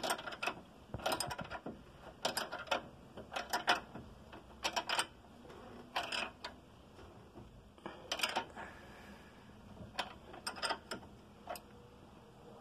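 Ratcheting wrench clicking in short runs, one run per swing, as it tightens the nut on a tie rod end's stud; the runs come about once a second and thin out over the last few seconds.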